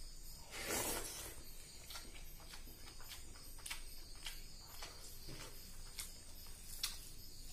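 Close-up eating sounds of fish curry and rice eaten by hand: a louder wet mouthful about a second in as a handful goes into the mouth, then chewing with many short lip-smacking clicks and the fingers mixing rice in gravy.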